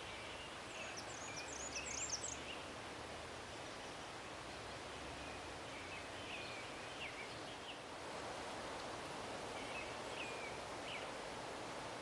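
Blackburnian warbler singing one short song of very high, thin notes about a second in. Lower chirps come three times, over a steady background hiss.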